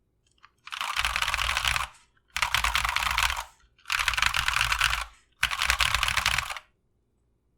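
Mechanical keyboard with stock, unlubed Glorious Panda tactile switches and PBT keycaps, keys tapped rapidly in four separate bursts of about a second each.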